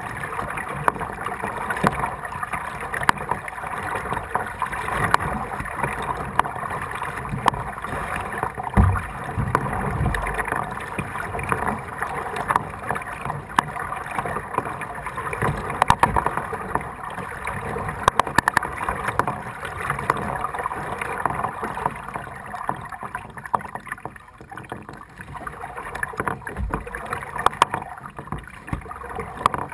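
Kayak paddle strokes dipping and splashing in floodwater, with water sloshing against the hull and a few low knocks.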